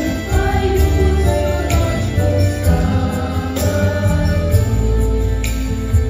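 Girls' vocal ensemble singing together over an instrumental accompaniment with a strong bass line.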